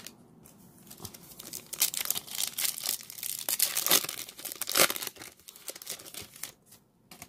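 Foil trading-card pack wrapper being torn open and crinkled by hand, with a run of crackling rips and rustles that dies away near the end.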